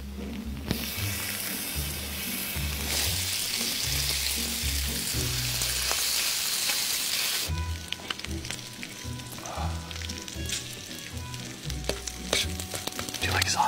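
Raw bacon sizzling as it is laid on a hot electric griddle: a steady frying hiss that starts about a second in, grows louder, and cuts off suddenly about halfway through. A low music beat runs underneath, with a few small clicks and knocks after the hiss stops.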